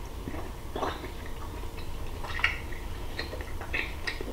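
Someone biting into and chewing a smoked baby back rib: scattered short wet smacks and clicks.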